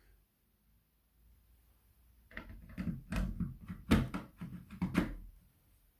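Plastic clicks and knocks as a FireAngel ST622 smoke alarm is pushed and snapped onto its mounting plate. After a quiet start, about half a dozen sharp knocks come over some three seconds.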